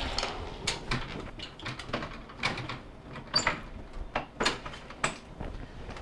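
Wire freezer basket and its plastic drawer tracks clicking and rattling in an irregular run of knocks as the basket's bar is worked under the lifted tracks.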